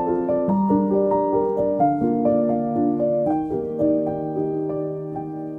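Background piano music: a slow, gentle piece of single notes that ring on and overlap, growing quieter toward the end.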